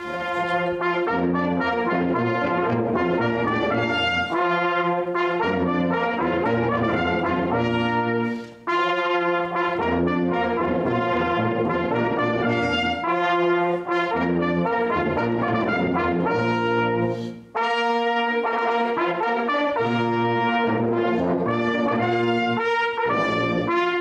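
An ensemble of hunting horns plays music in sustained, chord-like phrases, with two short breaks between phrases about a third and two-thirds of the way through.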